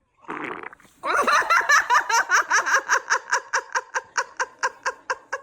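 A brief sound near the start, then from about a second in a long fit of laughter: a steady run of rhythmic bursts, about four or five a second, that weakens toward the end.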